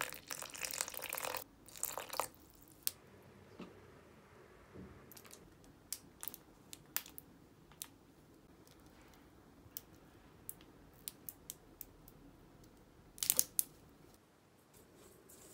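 A thin stream of water pouring onto crumbly flour dough in a stainless steel bowl, a hissy trickle lasting about a second and a half, with a second short trickle just after. Then faint scattered ticks and small taps follow, with a short cluster of louder crackles near the end.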